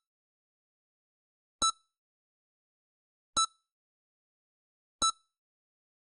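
Heart monitor (EKG) beeping: three short, identical beeps at an even pace, about one every one and three-quarter seconds, with silence between them.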